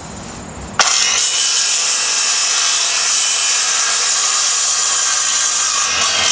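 Circular saw on an EZ Smart guide rail switched on abruptly about a second in, then running steadily as it cuts a thin strip of veneer off plywood.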